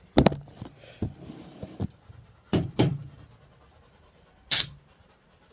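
A dog panting, with a handful of sharp knocks and bumps and one short, sharp hiss near the end.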